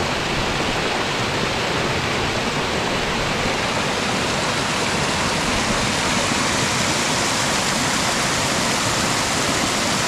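Mountain stream in a partly frozen valley, its water rushing steadily with a constant, even noise.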